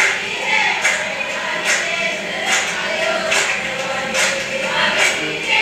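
A crowd of Eritrean migrants on a rescue boat chanting and singing together in joy and relief at the sight of land, with sharp claps keeping an even beat a little under once a second. It is heard as a video recording played back in a hall.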